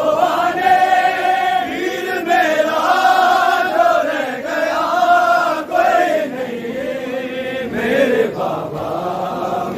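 A group of men chanting a noha, a Shia mourning lament, together in long drawn-out sung phrases.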